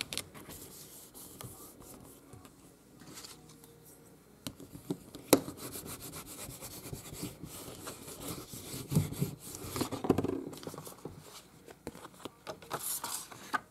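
A bone folder rubbed back and forth over paper glued onto a journal cover, burnishing it down so it sticks firmly. The rubbing and scraping strokes are irregular, mixed with paper handling and a few sharp clicks.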